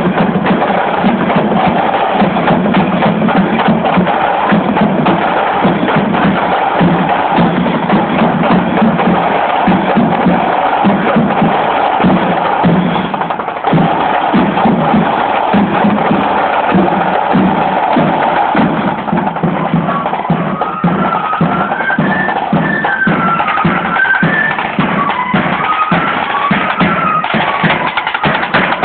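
Marching flute band: rapid, continuous side-drum beating with bass drum, and a high flute melody joining in about two-thirds of the way through.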